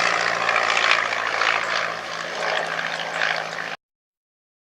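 Royal Aircraft Factory S.E.5a biplane's water-cooled V8 engine running with a steady drone. The sound cuts off abruptly about three-quarters of the way through.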